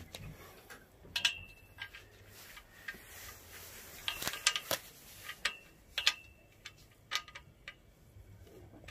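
Irregular sharp clicks and light clinks as small fittings are handled and pushed onto the powder-coated steel tubes of a hammock stand; a few of the clinks ring briefly like struck metal.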